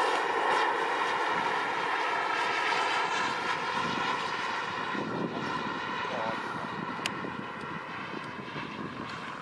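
Miniature K-140 jet turbine of a radio-controlled Viper jet model whining in flight, a steady high whine over a rushing hiss that slowly fades as the model moves away.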